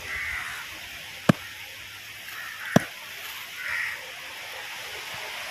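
Large knife chopping into a giant grouper on a wooden board: two sharp chops about a second and a half apart.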